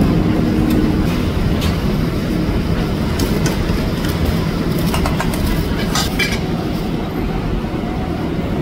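Metal spoon clinking several times against a metal bowl, over a steady low rumble of background noise.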